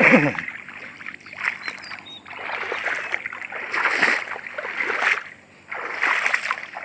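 Footsteps wading through shallow floodwater and wet grass, a splashing swish with each stride at about one step a second. A brief voice sound right at the start is the loudest moment.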